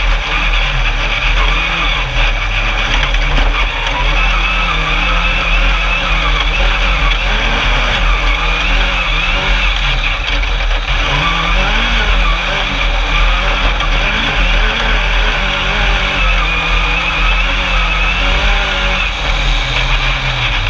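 Alumicraft single-seat Class 10 off-road race buggy running hard across sand, heard from on board. The engine note rises and falls again and again with the throttle over a steady rushing noise.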